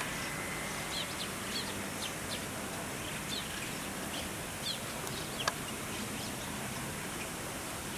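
Small birds chirping: short, high, downward-slurred chirps come every half second or so over a steady outdoor hiss. One sharp click sounds about five and a half seconds in.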